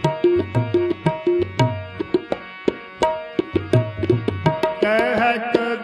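Tabla and harmonium playing an instrumental passage of Sikh kirtan: sharp tabla strokes with deep bass strokes from the bayan over sustained harmonium notes.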